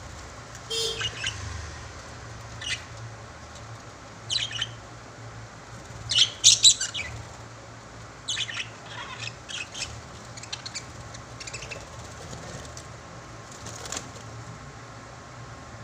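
Pet lovebirds chirping and squawking in short, shrill calls that come in scattered bursts, the loudest cluster about six seconds in.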